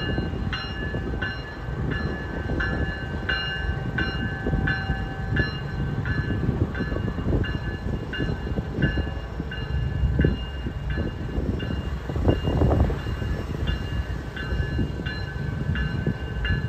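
Freight train rolling through a grade crossing: the low rumble and clatter of the Norfolk Southern GE D9-40CW locomotive and then its covered hopper cars passing. Over it, the crossing warning bell rings steadily, about twice a second.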